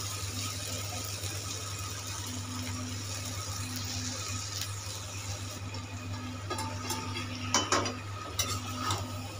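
Steady low hum and hiss of a kadhai of rice on a low gas flame, with a few metal clinks and knocks near the end as the pan is handled with metal tongs.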